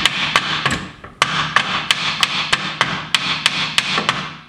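A hammer striking the underside of a steering knuckle, about three blows a second with a brief pause about a second in, driving the knuckle up onto the bottom of the strut.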